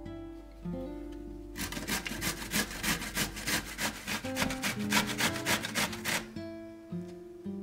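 Zucchini being grated on a stainless-steel box grater: rasping strokes about three a second, starting about a second and a half in and stopping about six seconds in. Acoustic guitar music plays underneath.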